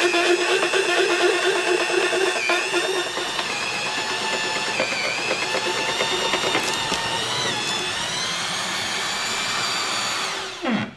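Milwaukee Hole Shooter drill running hard, driving a long bit with an extension into a Douglas fir block. The motor's whine sags in pitch several times as the bit bites under load. Near the end the trigger is released and the drill winds down to a stop.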